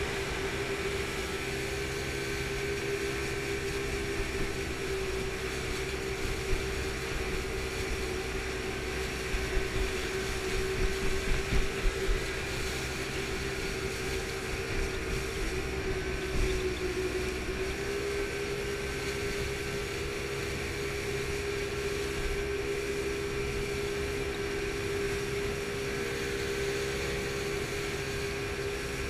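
Boat engine running steadily at speed, a loud drone over water rushing past the hull. Its pitch dips briefly about seventeen seconds in, and a cluster of thumps comes about ten to twelve seconds in.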